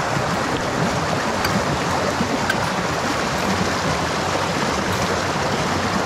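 Shallow mountain creek rushing and splashing over rocks right beside the microphone, a steady, even rush of white water.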